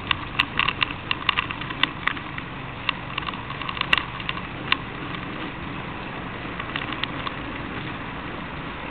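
Bicycle rattling as it rolls along a rough tarmac path. Sharp irregular clicks come thick for the first few seconds and then thin out, over a steady rushing noise.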